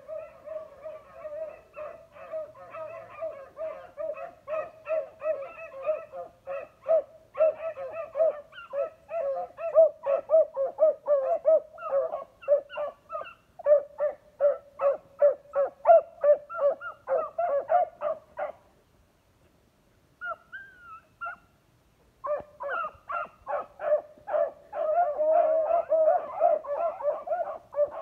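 A pack of beagles baying, giving tongue in rapid, overlapping calls several a second while they work a scent line. The cry stops for about three seconds two-thirds of the way in, then starts again strongly.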